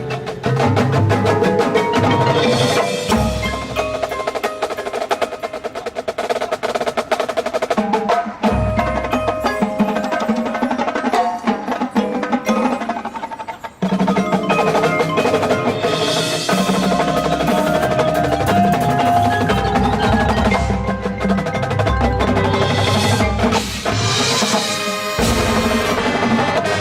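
A high school marching band playing its field show music, with percussion prominent. The music thins out and softens for a stretch in the first half, then the full band comes back in loudly about halfway through.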